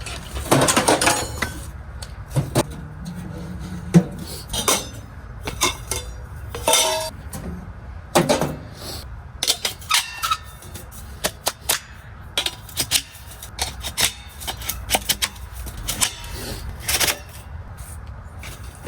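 Metal clanking and clinking of a portable tent wood stove and its stovepipe sections being handled and fitted together: many irregular sharp knocks, with a longer rattle about a second in.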